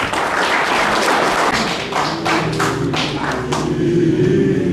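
A run of sharp taps and knocks, over a dense noisy wash for the first couple of seconds, with a low, steady pitched sound coming in about halfway.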